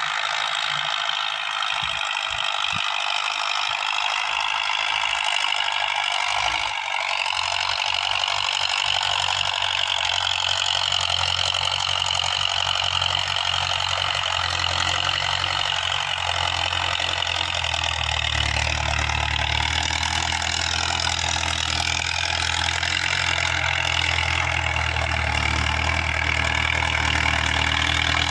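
Diesel farm tractor working a field with a trailed disc harrow, its engine running steadily under load. The engine note shifts in pitch a couple of times, and its low rumble grows stronger about two-thirds of the way in as the tractor comes closer.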